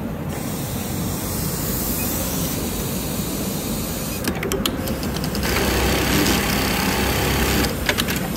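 Hikari programmable sewing machine running a one-step test, its motors driving the feed frame along the programmed path as a steady mechanical whir. There are runs of sharp clicks about halfway through and again near the end, and the whir is louder in between.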